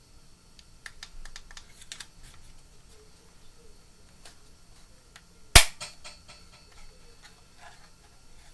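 Small clicks and ticks of a handheld Wonder Bible audio player and its cord being handled and fiddled with, with one loud, sharp snap about five and a half seconds in.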